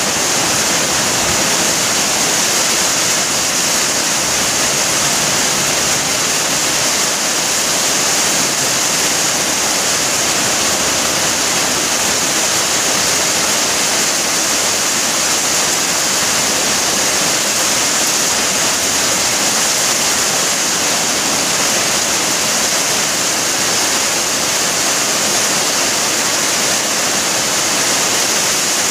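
Heavy tropical downpour: a steady, even hiss of rain pouring onto roofs and a wet street.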